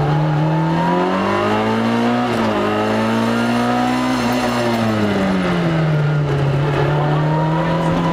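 Rally car engine heard on board, accelerating hard for about two seconds. A quick gear change comes near 2.5 seconds, then it holds at high revs. It eases off between about four and six seconds in and then runs steadily at lower revs.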